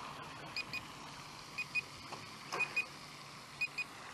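Radio-control transmitter of a Voltanex Vector S RC boat sounding its low-battery warning: short high double beeps, about one pair a second, telling the driver to bring the boat back in.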